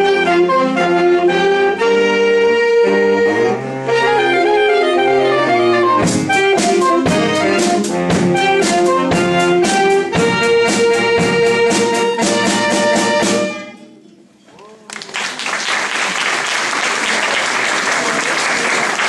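Saxophone ensemble playing a jazzy piece, with a drum kit joining in about six seconds in. The music ends about two-thirds of the way through, and after a short pause the audience applauds.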